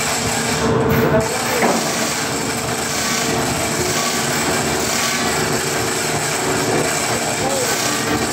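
Continuous rasping noise of shipyard machinery, steady and loud, with a few faint short squeaks about a second in and again near the end.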